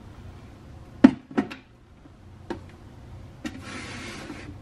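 Kitchen handling noises: two sharp knocks about a second in and a lighter tap, then a click followed by about a second of hissing rustle near the end.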